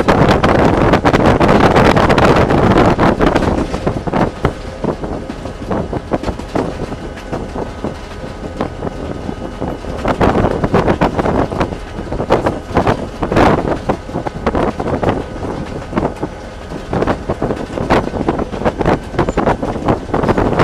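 Cab noise of a moving Chicago and North Western SD40-2 diesel-electric locomotive: the steady drone of its EMD V16 two-stroke diesel, with irregular knocks and rattles from the running gear on the track and wind buffeting the microphone. It is loudest for the first few seconds, eases off, then swells again about halfway through.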